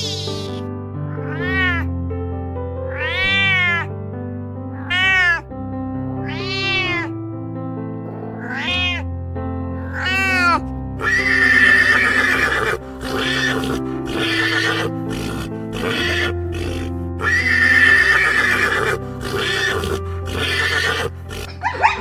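Animal calls over background music: a run of about six short rising-and-falling pitched calls in the first half, then longer, rougher calls in the second half.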